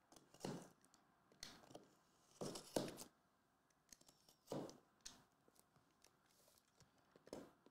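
Several short, faint scratchy rustles of shrink-wrap being slit and pulled off sealed trading-card boxes.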